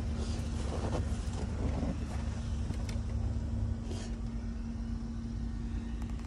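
A vehicle engine idling: a steady low rumble with a constant hum.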